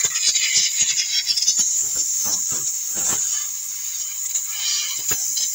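Steady airy hiss of air through a hose nozzle worked over the soot-covered plastic slats of a fire-damaged car's vent, with frequent small knocks and scrapes as the nozzle taps and rubs against the plastic.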